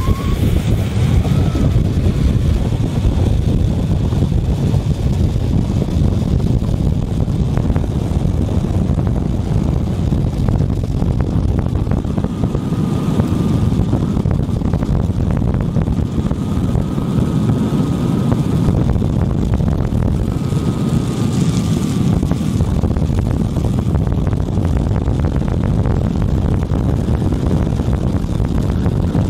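Wind rushing over the microphone at downhill speed, over the steady rumble of longboard wheels rolling on asphalt. A faint high whine comes and goes about three times midway.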